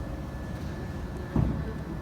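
Steady low mechanical rumble with a single thump about one and a half seconds in.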